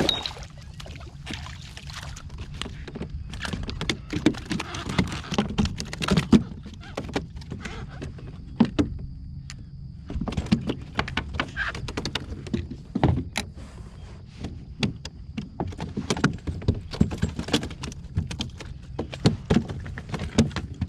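Irregular knocks, thunks and rattles on a plastic fishing kayak as a freshly landed trout flops and is handled along with the fishing gear, over a steady low rumble.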